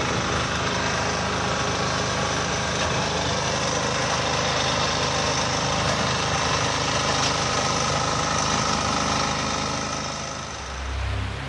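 An engine idling steadily, most likely road-repair machinery or a vehicle at the works, replaced by music near the end.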